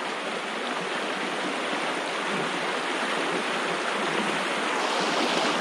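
Shallow stream running over a stony bed: a steady rush of flowing water.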